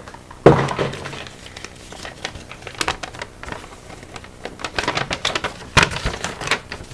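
Paper and a cardboard snack box being handled: irregular rustling and crinkling with small clicks. A louder knock about half a second in and another near the end.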